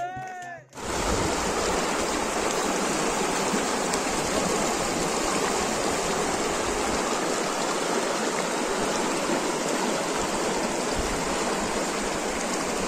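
Glacial meltwater stream rushing over rocks, a steady, dense rush of water that cuts in abruptly about a second in.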